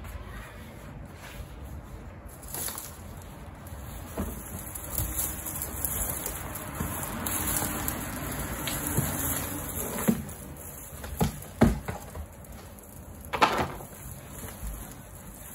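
Potting soil and dry dead plant roots rustling and sliding as a planter box is tipped out into a plastic pot, followed by a few sharp knocks of the plastic containers, the loudest two near the end.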